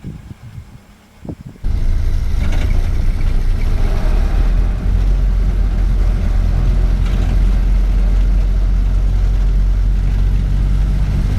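1931 Ford Model A's 40-horsepower four-cylinder engine running with a steady low rumble that comes in abruptly about a second and a half in, after a couple of faint knocks.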